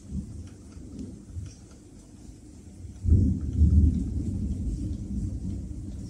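Air blowing from a Samsung AS05ESMN split air conditioner's indoor unit buffeting the microphone: an uneven, gusty low rumble that gets much louder about three seconds in.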